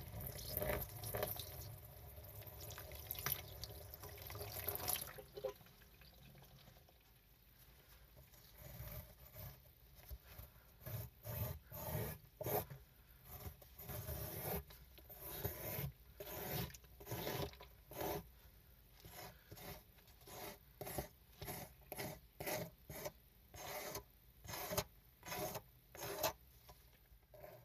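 Water poured onto a miniature rug, splashing steadily for about the first five seconds. Then a tiny squeegee is dragged across the wet rug in repeated strokes, about one to two a second, each a short wet scrape.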